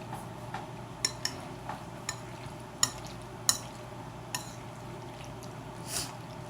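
Eating utensil clicking and scraping against a dish of mac and cheese: about nine short, sharp clinks spread irregularly, the loudest near the middle.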